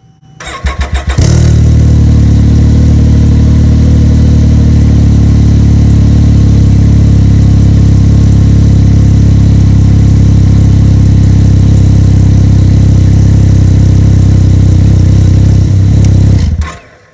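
2022 Can-Am Ryker 900 ACE's Rotax three-cylinder engine cranked on the starter, catching after about a second, then idling steadily and loudly through the stock exhaust, heard right at the muffler outlet. It is shut off near the end.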